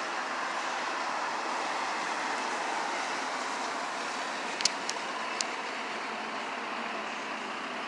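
Steady street and traffic noise, an even rushing hum. Three sharp clicks come a little past halfway.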